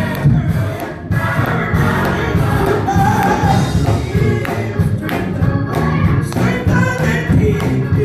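Gospel choir singing with instrumental accompaniment and a steady percussive beat.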